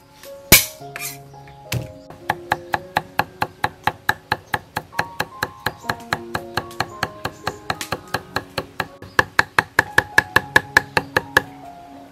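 Steel cleaver chopping garlic on a round wooden chopping block. One heavy chop comes about half a second in, then a long, even run of quick chops at about five a second, mincing the garlic, with soft instrumental music underneath.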